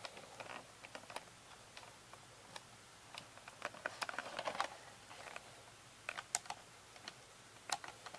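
Small clicks and short scratching sounds of fingers and fingernails working at a plastic VHS cassette shell, picking off its print-date sticker; a cluster of scratches comes a little past the middle, with a few sharper clicks near the end.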